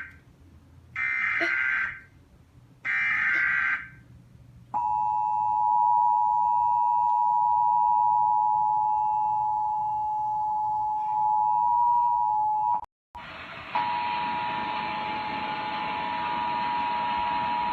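Emergency Alert System broadcast tones from a TV: the last of three short, raspy bursts of digital header data, each about a second long, then the steady two-tone attention signal. The attention signal cuts out briefly near the middle and resumes with a hiss under it.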